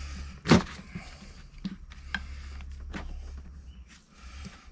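Hard parts knocking and clicking on a workbench as old control-arm bushing pieces are worked out and set down: one sharp knock about half a second in, then a few lighter clicks, over a steady low hum.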